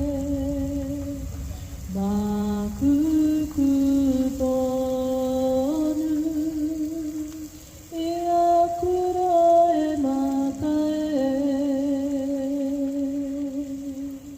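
A single voice singing slowly, holding long notes with vibrato and stepping from pitch to pitch, with a couple of short breaths between phrases.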